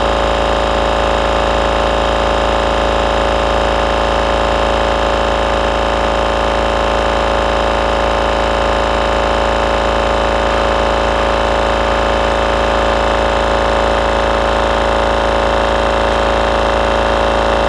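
Kobalt Quiet Tech 4.3-gallon twin-stack oilless electric air compressor running steadily with an even hum, its pump filling the tank toward its 150 psi cut-off.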